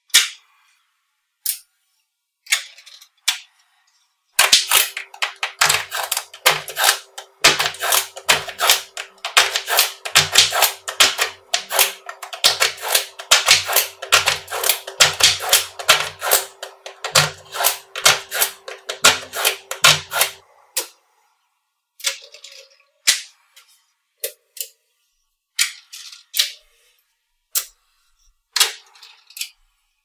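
Small magnetic balls clicking and snapping against each other as they are stacked and pressed into layers: a few separate clicks, then from about four seconds in a dense run of rapid clicks with dull low knocks for some fifteen seconds, then scattered clicks again.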